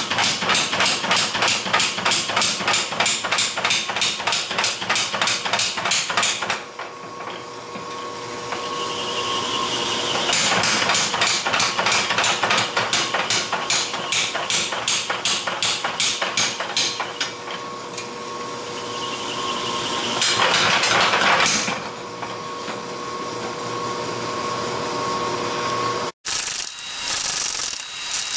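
Forging hammer striking a hot steel langseax blade on the anvil in fast, even runs of about three to four blows a second while the bevels are drawn out, with a pause between runs and a steady hum underneath.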